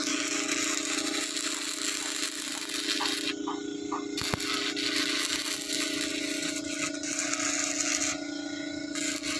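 Stick welding on steel: the electrode arc crackles and hisses steadily, cutting out briefly a little over three seconds in and again near the end, over a steady hum.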